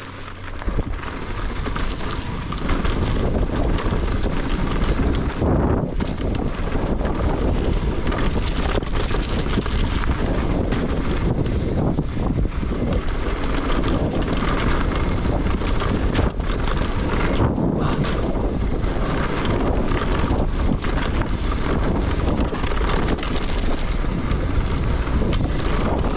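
Wind buffeting a GoPro microphone and knobby tyres rumbling over a dirt trail on a downhill mountain-bike run, with frequent rattles and knocks from the bike. The noise builds over the first couple of seconds as the bike picks up speed, then holds steady.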